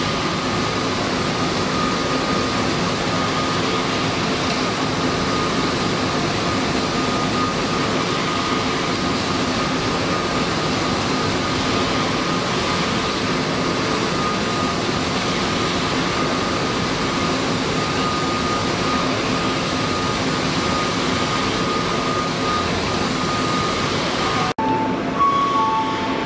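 Kitamura Bridgecenter-6G #40 CNC double-column machining center running: a steady machining noise with a constant high whine. Near the end the sound cuts abruptly to a different one with short, repeated tones.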